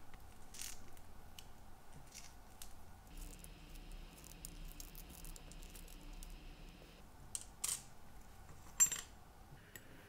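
Small metallic clicks and rattles of a pocket watch mainspring being drawn out of its brass barrel by hand, the steel spring uncoiling, and small parts tapping on the mat, with two sharper clicks late on.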